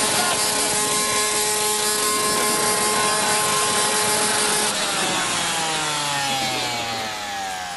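Hopped-up gas-powered weed trimmer running flat out with a loud, steady high-pitched whine over a hissing noise. About five seconds in it is cut back and its pitch falls away steadily as the engine winds down.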